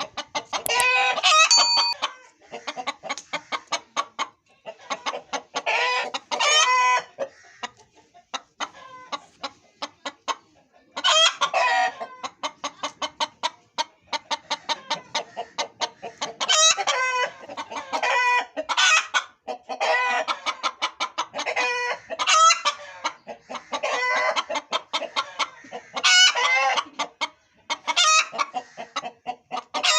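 Hen clucking in rapid runs, several clucks a second, broken every few seconds by a longer drawn-out pitched call.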